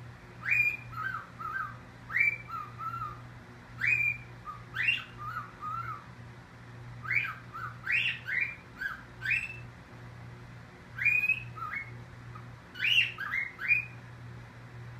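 Cockatiel calling over and over, each burst a loud rising whistle followed by a few shorter, lower chirps, repeated every second or two with a couple of short pauses. These are protest calls from a bird kept in its cage at bedtime.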